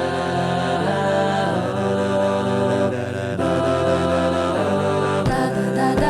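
A cappella group singing held chords without words over a low sung bass line. About five seconds in, beatboxed kick-drum beats come in, repeating roughly twice a second.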